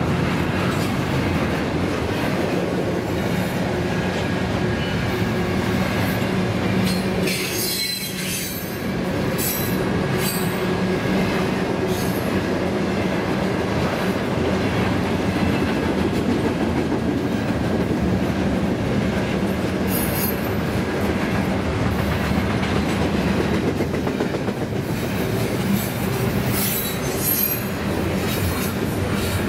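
Loaded double-stack intermodal well cars rolling past with a steady rumble of steel wheels on rail. High-pitched wheel squeals come and go: a cluster about a quarter of the way in, a brief one near the middle, and more near the end.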